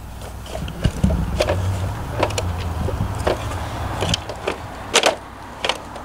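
Hard plastic toy truck and trailer parts clicking and knocking as the trailer is unhitched: a string of sharp clicks, the loudest about five seconds in, over a low rumble.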